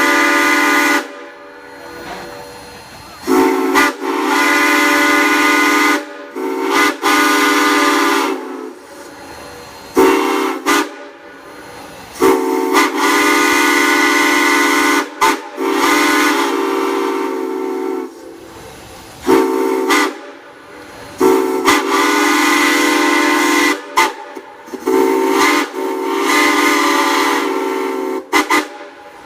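Large steam whistle blown in a series of blasts, some short and some held for several seconds, with several steady tones sounding together in each blast. Hissing carries on in the gaps between blasts.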